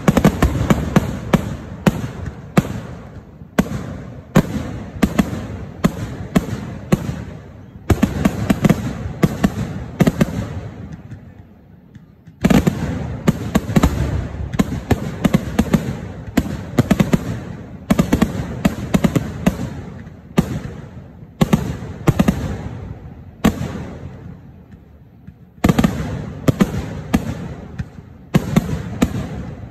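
Temple-festival fireworks (vedikettu): a rapid barrage of loud bangs, several a second, in volleys that briefly die down twice, about a third of the way in and again near the end.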